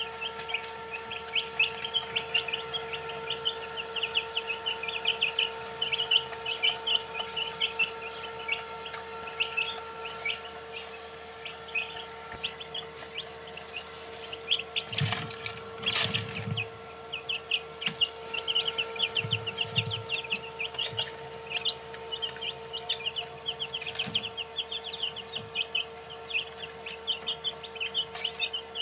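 A brood of white Heera chicks peeping continuously in rapid, short, high chirps over a steady hum, with a few knocks about halfway through.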